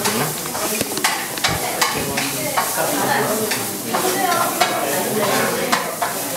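Kitchen sounds: a steady sizzling hiss with frequent light clicks and taps, as chopsticks place vegetables into a ceramic rice bowl.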